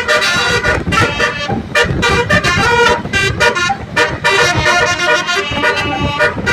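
Bus basuri horn, a multi-note musical air horn, playing a quick melody of short notes that change pitch in rapid succession.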